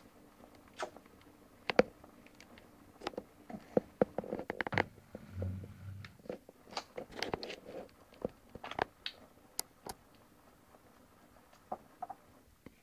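A baby eating finger food: scattered small wet mouth smacks and chewing clicks, with light taps of fingers on a plastic high-chair tray, busiest in the middle.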